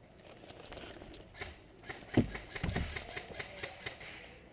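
Airsoft guns firing: a string of sharp snapping clicks, about five a second, starting about a second and a half in. Two heavier low knocks come a little after two seconds in.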